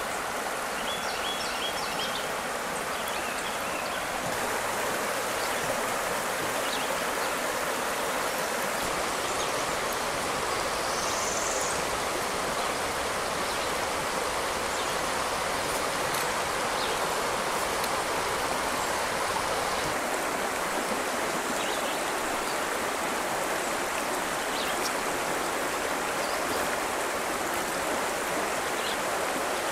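Mulberry River water running over a shallow rocky riffle: a steady, even rush of flowing water.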